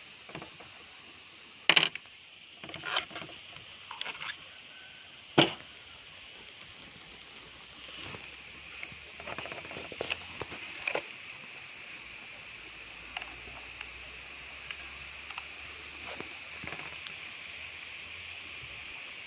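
Sharp clicks and knocks from handling a tan airsoft SCAR-style rifle replica, four clear ones in the first six seconds, the loudest about two and five seconds in, then lighter taps and ticks, over a steady high hiss.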